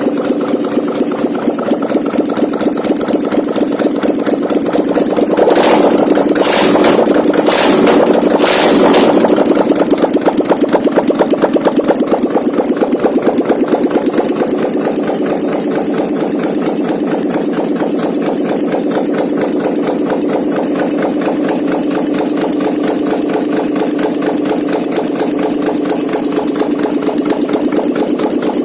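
800 cc V-twin ATV engine, converted to run on a Harley-Davidson carburettor, running with a fast, even idle pulse; about five seconds in it is brought up louder for a few seconds with several sharp blips, then settles back to a steady idle.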